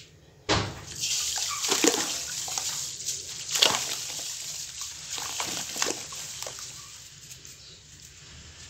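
Dry sand-cement powder poured into a steel bowl of water, splashing and hissing as it hits the water. It starts suddenly about half a second in and tapers off over the last few seconds.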